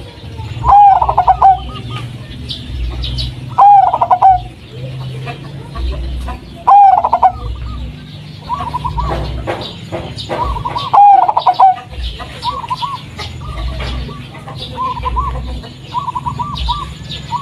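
Zebra dove (perkutut) of the local Blorok Madu type cooing: four loud phrases about three seconds apart, with softer, quicker coos in between and toward the end, over a low rumble and faint chirps of small birds.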